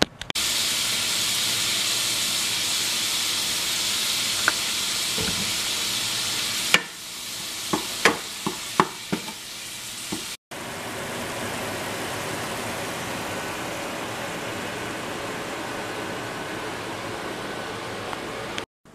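Ground beef sizzling in a stainless steel frying pan as it is stirred with a wooden spoon. The steady sizzle dips about seven seconds in, where a few sharp clicks of the spoon against the pan stand out, then picks up again.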